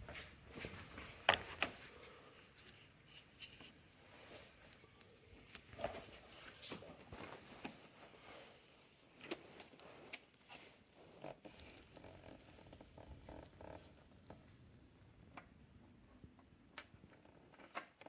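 Faint, scattered clicks and short scrapes of metal hand tools, with the sharpest click about a second in.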